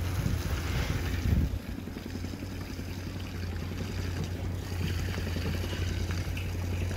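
A motor drones steadily at a low pitch, with the hiss of water spraying from a hose over it. There is a brief louder low rumble a little over a second in, and wind on the microphone.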